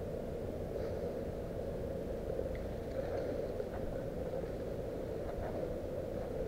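Steady low rumble of wind and handling noise on a body-worn action camera, with a few faint scuffs and clicks as the wearer moves about.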